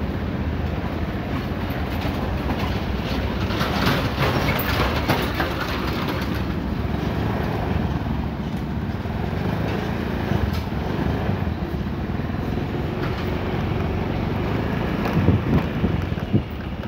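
Motorcycle engine running steadily at low speed, with a few knocks and rattles from the bike about 4 seconds in and again near the end.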